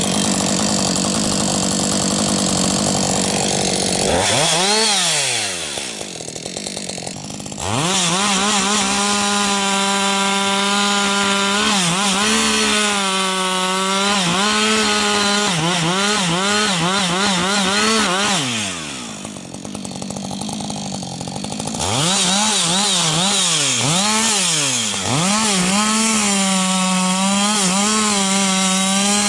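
Husqvarna 555 autotune two-stroke chainsaw running at full throttle, cutting stumps. The engine note wavers and dips as the chain loads up in the wood. Twice, about four and about nineteen seconds in, it drops back to lower revs and then revs up again.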